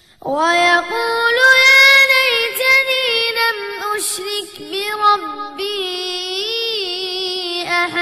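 A boy's voice reciting the Quran in the melodic murottal style, drawing out long, ornamented notes.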